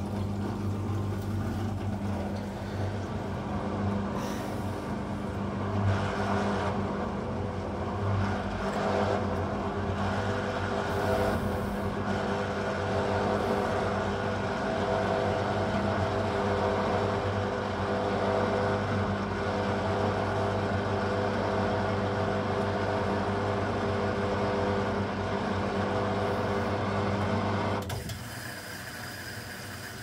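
Asko 12605 front-loading washing machine running in its rinse cycle: a steady machine hum that cuts off suddenly about 28 seconds in.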